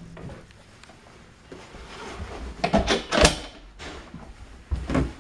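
A few short knocks and clatters, like a drawer or door being worked, a little under three seconds in, then a single thud near the end.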